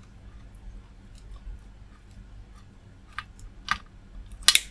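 Wire cutters and a small plastic wire connector clicking as the cutters grip and work a wire out of the connector: scattered faint clicks, then three sharper ones in the last second and a half, the loudest near the end.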